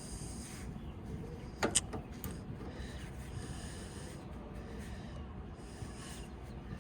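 Work on a copper refrigerant line at the filter drier, which is being cut out: a low, steady background with one sharp metallic click about two seconds in and a fainter one just after.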